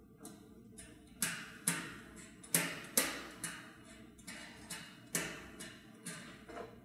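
Sharp metallic clicks and taps, a dozen or so unevenly spaced, as a nut is turned and tightened by hand on a bolt at the rim of a stainless steel tank. The loudest come in the first half.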